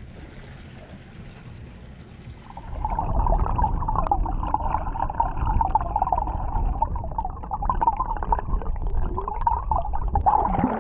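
Muffled underwater water noise, gurgling and bubbling, as heard by a camera held under the surface; it starts abruptly and loudly about two and a half seconds in, after a quieter steady hiss above the water.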